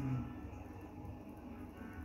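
Faint background music.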